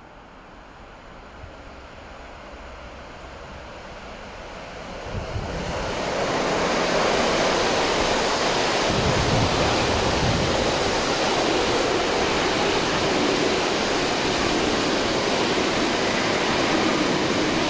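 Electric freight train of container wagons hauled by an ASEA Rd2 locomotive passing close by: a rushing noise that grows louder as the train approaches, becomes loud about six seconds in, then stays steady as the wagons roll past on the rails.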